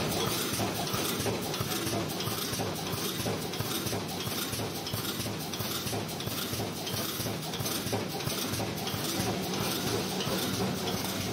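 Automatic wire mesh welding machine running: a fast, continuous metallic clatter over a steady low hum.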